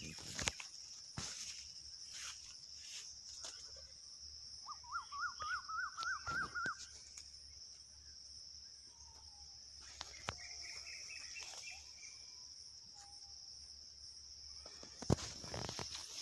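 Steady high-pitched insect drone, like crickets, in an orchard, with bird calls over it: a fast run of repeated rising-and-falling notes about five seconds in, and a shorter, higher run around ten seconds. Occasional light clicks, the loudest near the end.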